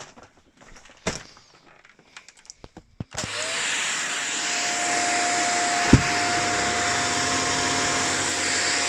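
A few clicks and knocks, then about three seconds in a Shark Lift-Away NZ801UK upright vacuum cleaner switches on and runs with a steady rushing noise and a steady high whine. A single thump sounds about six seconds in.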